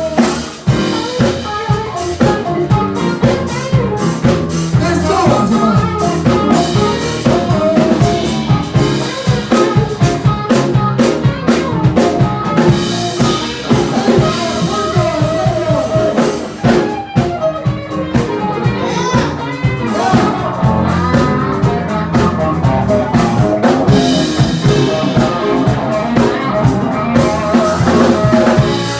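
A live soul band playing, with drum kit and bass guitar under a melody line.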